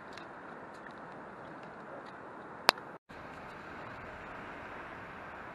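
Steady outdoor background noise of a town street, with a few faint ticks early on. About three seconds in there is one sharp click and a split-second dropout to silence where the recording is cut, then the same steady noise carries on.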